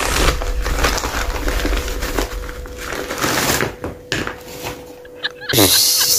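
Brown paper bag crinkling and rustling as a rubber toy is pulled out of it, a dense run of crackles. About five and a half seconds in comes a sudden loud hissing burst.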